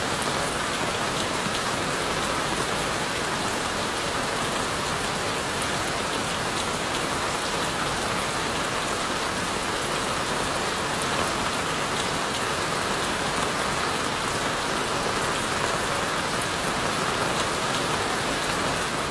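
Steady rain falling: an even hiss of water with a dense patter of small drop impacts, unchanging throughout.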